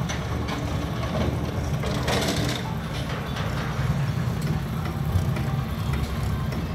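Drum concrete mixer running, its engine giving a steady low rumble while the drum churns concrete for a lintel pour. About two seconds in there is a brief louder burst of rattling noise.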